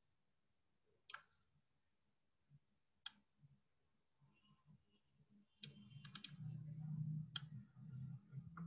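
Computer mouse clicks against near silence: single sharp clicks a second or two apart, then a quick run of three about six seconds in. A faint low rumble joins in the second half.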